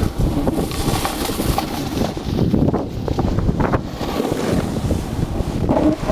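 Wind buffeting the microphone during a fast snowboard run, a loud uneven rumble that rises and falls.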